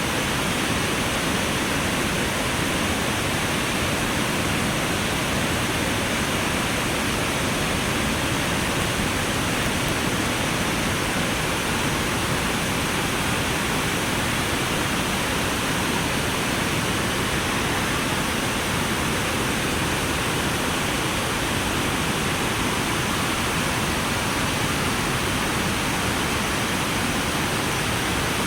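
Steady rushing noise of sea waves washing in, even and unbroken.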